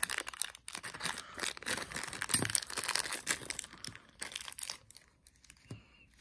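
Thin black plastic wrapper being torn open and crinkled by hand, a dense crackling that thins out about four seconds in.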